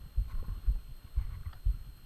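Footsteps of a climber walking uphill in packed snow, heard as dull, even thumps about twice a second with a faint crunch, as a body-worn camera is jolted by each step.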